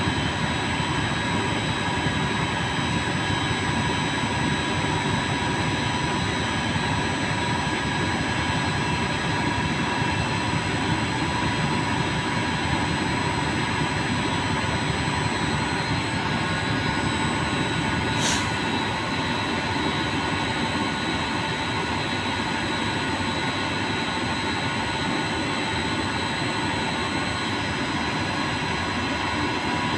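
Steady hiss and hum of TIG welding equipment running, with thin steady whining tones throughout and one sharp click about eighteen seconds in.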